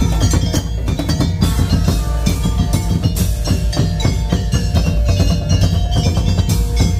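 Madurese tong-tong percussion ensemble playing a fast, dense rhythm: wooden slit-drum strikes and drums over a heavy bass, with ringing metal tones held above.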